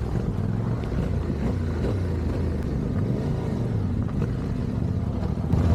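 Yamaha Ténéré 700 parallel-twin engine running at steady, fairly low revs, getting a little louder near the end.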